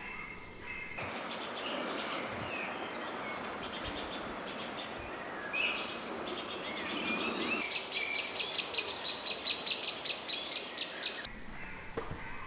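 Woodland birds chirping and singing, ending in a fast run of sharp, high repeated notes that grows louder. The birdsong cuts in about a second in and cuts off abruptly near the end.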